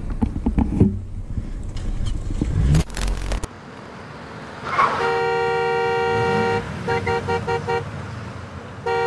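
Engine and road noise for the first few seconds, then a vehicle horn: one long blast about five seconds in, followed by a quick run of short toots and another short honk at the end.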